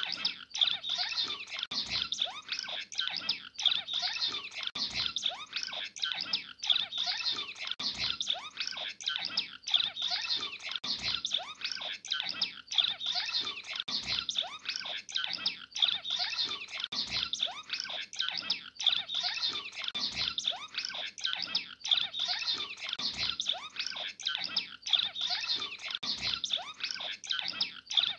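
Cut-throat finch singing: a continuous dense run of high chirps and twitters, with a faint low thump about every second and a half.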